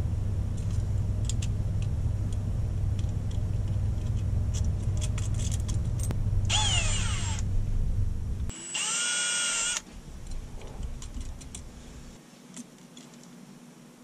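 Small clicks and rattles of hand work on electrical wiring and metal fittings over a steady low rumble. Two short high whines partway through, the second held steady for about a second. After that the rumble stops and only faint clicks remain.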